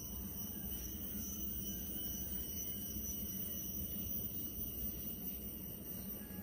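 Steady background noise: a low rumble with faint, steady high-pitched tones above it, a little louder during this stretch.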